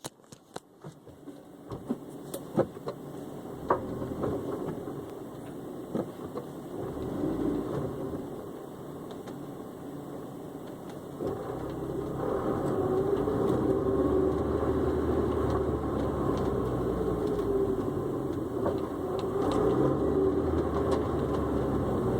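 Honda S2000 with an intermittent clunk: sharp knocks at irregular intervals, several in the first few seconds, over the sound of the running car, which grows louder about twelve seconds in.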